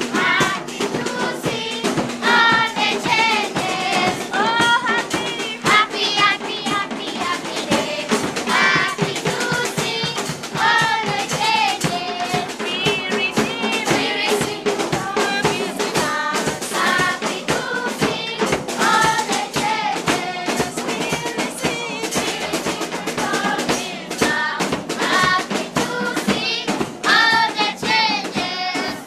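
A group of children singing together in chorus, with steady drumming keeping the beat.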